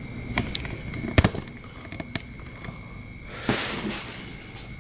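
Small hard-plastic action-figure parts clicking and tapping as they are handled, the loudest click about a second in, then a brief rustle about three and a half seconds in.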